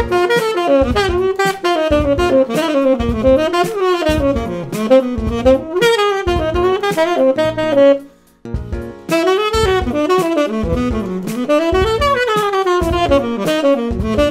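Tenor saxophone playing a flowing jazz line of quick runs of notes, the kind of phrase played over a one-chord vamp, with one short break about eight seconds in.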